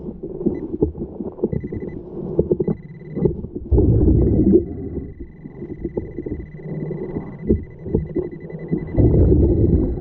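Underwater rumble of turbulent waterfall water, with irregular knocks and surges as a metal detector's search coil sweeps and bumps over the sandy bottom. A thin, steady high beep comes and goes over it, then holds from about four seconds in.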